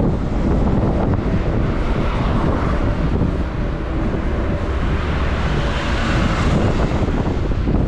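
Heavy wind rumble on the microphone of a camera moving through traffic. A vehicle passes close by, its hiss swelling and fading about five to seven seconds in.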